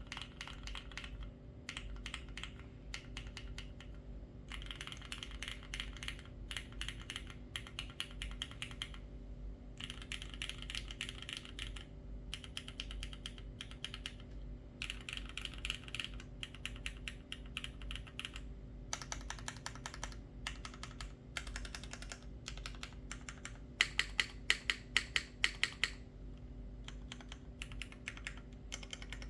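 Typing on a Tomo75 75% mechanical keyboard with lubed, filmed Cherry HyperGlide Black linear switches on an aluminium plate, GMK keycaps and no foam: quick runs of keystrokes in bursts with short pauses. Near the end comes a run of about a dozen louder, evenly spaced single keystrokes.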